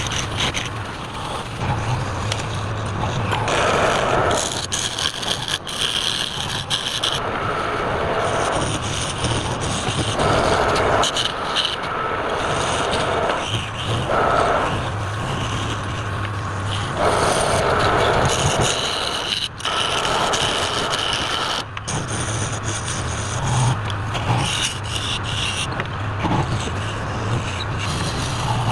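Wood lathe running with a steady motor hum while a turning tool scrapes the spinning workpiece, the cut swelling in repeated passes of a second or two.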